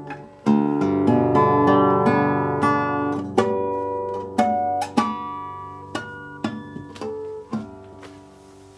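Russian seven-string acoustic guitar played: a full chord struck about half a second in, then a run of single plucked notes that grow steadily quieter, the last ones left to ring out.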